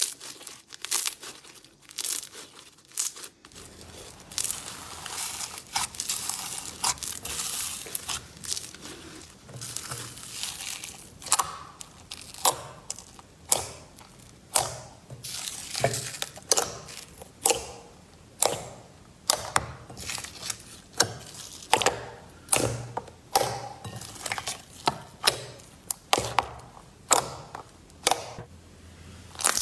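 Slime being worked by hand close to the microphone: crinkling and crackling at first, then a long run of sharp pops and crunches about one to two a second as it is pressed and squeezed.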